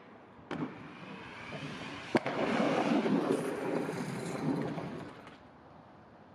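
Inline skates on a street handrail and paving: a knock as the skater lands on the rail, a sharper clack about two seconds in as he comes down onto the ground, then the wheels rolling over the paving slabs for about three seconds before fading out.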